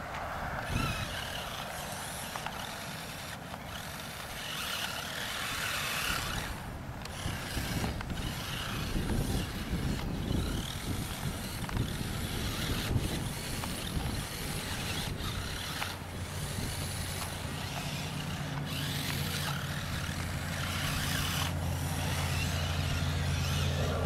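Electric motor and geared drivetrain of a New Bright Rhino RC monster truck whirring as it drives through sand, cutting out briefly every few seconds as the throttle is let off and applied again. A steady low hum joins in for the last several seconds.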